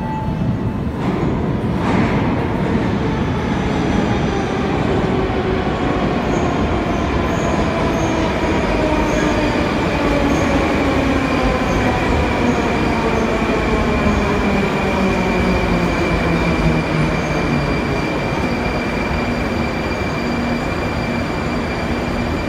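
Moscow Metro train pulling into the platform and braking, a loud running whine whose pitch falls steadily as it slows, with a steady high squeal over it.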